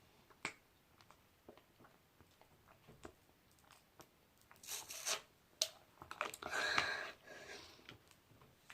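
Slime being squeezed and stretched by hand: scattered small clicks and crackles, with louder squishing about five seconds in and again for a second or so around the seven-second mark.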